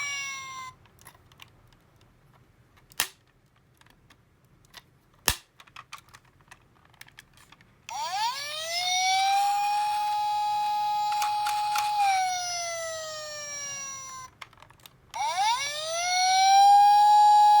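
Toy fire truck's electronic siren wailing: the tone falls away and stops just under a second in, a few sharp clicks follow during a quiet stretch, then about eight seconds in the siren rises, holds, and slides down again, and it rises once more near the end.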